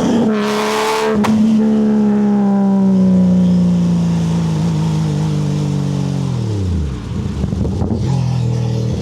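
Porsche 964's air-cooled flat-six through a custom exhaust, loud. The revs fall away at the start with a couple of sharp cracks, then the engine note sinks slowly off-throttle for several seconds. Near the end the revs drop steeply into a rough, lumpy low note and then hold steady at low revs.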